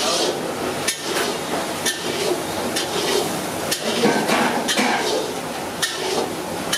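Metal ladle clanking and scraping against a large cooking pot while vegetable pulao is stirred, with irregular sharp knocks over a steady background of cooking noise.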